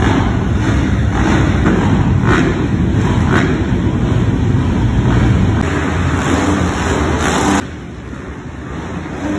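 A pack of dirt bike engines running and revving together while the riders wait at the starting gate. The noise drops sharply a couple of seconds before the end.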